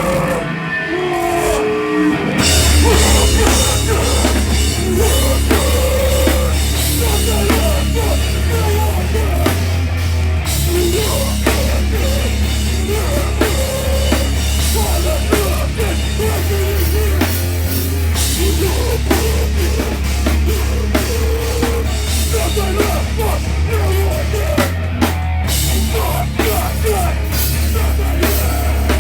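Loud live heavy rock band with a drum kit playing a song; the full band comes in about two seconds in after a sparser opening.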